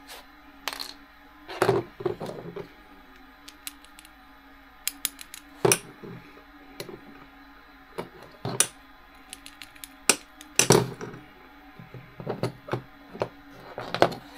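Hand tools and small metal parts clinking and knocking on a workbench during hands-on assembly: irregular sharp clicks and clatters, the loudest about two seconds in and near eleven seconds in.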